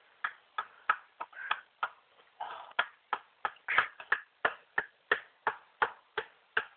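Axe chopping rapidly into a standing tree trunk, sharp, evenly spaced blows about three a second, as the tree is being felled.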